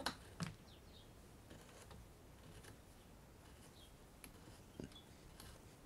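Near silence broken by a few faint metallic clicks, with a soft knock about half a second in. They come from a motorcycle fork's top cap being pressed down against the fork spring and started on its thread by hand.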